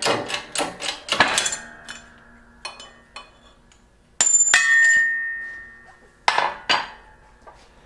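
Metal clanking and ringing as steel parts are knocked and set against each other at a hydraulic press while a tractor water pump shaft and bearing are pressed out. A string of clanks, the loudest a sharp clang about four seconds in that rings on for over a second.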